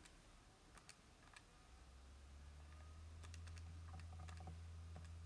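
Near silence with faint clicks of keys being tapped in short runs, in the pause while 78.4 ÷ 0.64 is being worked out; a low steady hum comes in about two seconds in.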